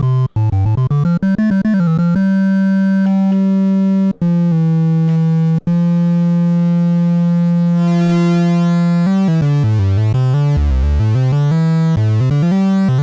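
Yamaha CS-15 analog monosynth playing two oscillators mixed, with a triangle wave on the bottom of the sound. A few quick notes lead into long held low notes, whose upper overtones change partway through as a panel knob is turned. The last few seconds are a quick run of low notes.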